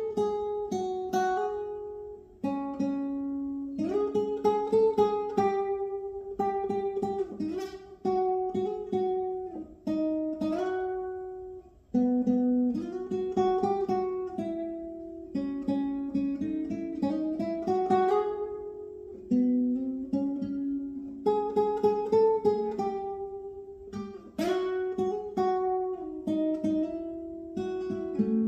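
Solo acoustic guitar playing a slow worship tune, chords picked and strummed every second or two and left to ring out.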